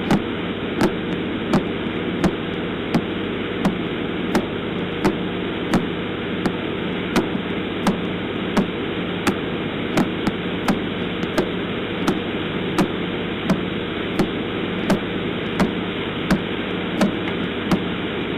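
Radio signal of the pulsar PSR B0329+54 converted to sound: a steady static hiss with a sharp, evenly spaced click roughly three times every two seconds, each click one turn of the spinning neutron star.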